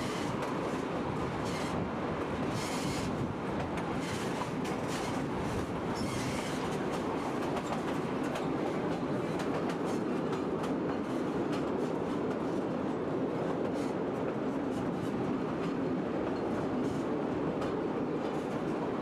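White Pass & Yukon Route train running on its narrow-gauge track: a steady rumble of wheels on rails, with clicks from the rail joints coming thickest in the first several seconds.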